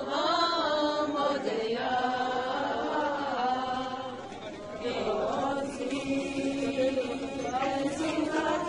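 A group of women singing a Jewish prayer chant together, with long held notes that bend in pitch and carry on without a break.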